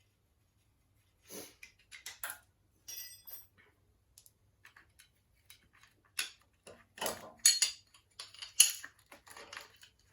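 Metal tools and engine parts clinking and knocking in irregular handling, with a brief ringing metallic clink about three seconds in and the loudest knocks in the second half.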